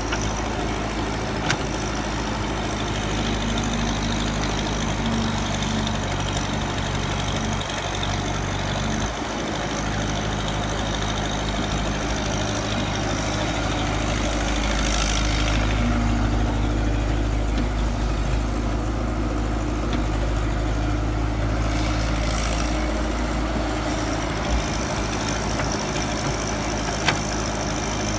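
Excavator's diesel engine running steadily, a low even hum with higher tones coming and going. It is broken by a couple of short clicks.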